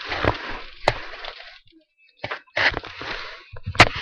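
Handling noise from a laptop being carried and moved: rubbing and scraping right on its built-in microphone in three stretches, with a sharp knock about a second in and a louder one near the end.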